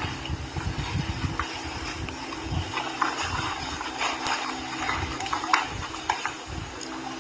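Two people grappling on foam mats: irregular low thumps and scuffs of bodies shifting and landing, with a few sharp knocks, the loudest about five and a half seconds in, over a faint steady hum.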